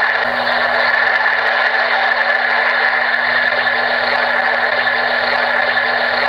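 Homedics SoundSpa Rejuvenate sound machine playing its ocean sound as a steady, even hiss, with a faint hum underneath.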